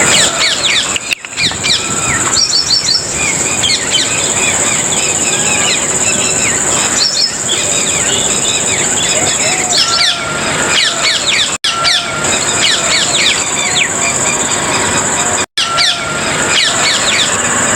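Many small birds chirping, quick high chirps and short sweeps overlapping without pause, over a steady high insect drone. The sound drops out for an instant twice, in the middle and later on.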